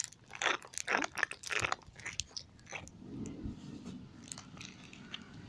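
A person chewing a crunchy snack close to the microphone: a quick irregular run of crunches over the first two seconds or so, then fainter chewing.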